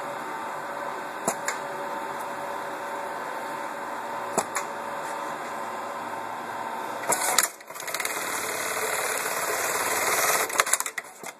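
Juki LK-1920 bartacking machine: a steady hum with a few light clicks while the work is set in the clamp. About seven seconds in there is a burst of clicks, and then the machine sews a bar tack for about three seconds, a fast, dense stitching sound. It ends in a few clicks and falls quiet.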